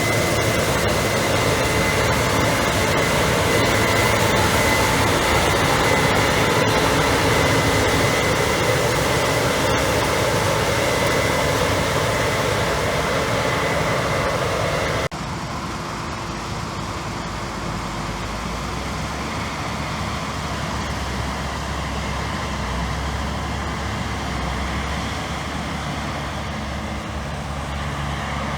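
Heavy farm machinery running during a soybean harvest, with a combine and tractor engines and machinery noise and a steady whine over the top. Halfway through it cuts sharply to a quieter, lower engine rumble.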